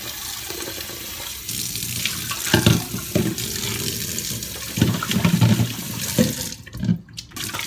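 Kitchen tap running into a stainless-steel sink while a bowl is rinsed under it, with a few knocks of the bowl against the sink. The water stops near the end.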